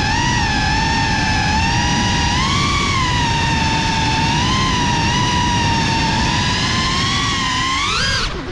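GEPRC CineLog 35 cinewhoop drone's motors and propellers whining steadily, the pitch wavering up and down with the throttle. Near the end the pitch climbs sharply, then drops away for a moment.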